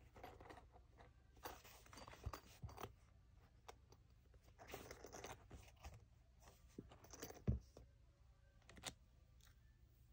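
Quiet handling sounds of a black pencil pouch and plastic-sleeved stationery: scattered rustling, crinkling and light scrapes, with a soft thump about halfway through.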